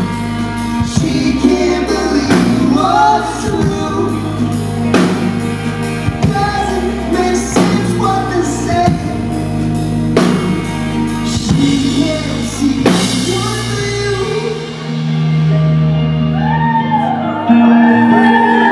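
Live rock band (drum kit, bass, electric guitar) with a singer playing a song out: the drums and cymbals stop about 13 seconds in and a final chord is held. Shouts and whoops from the audience come in over the held chord near the end.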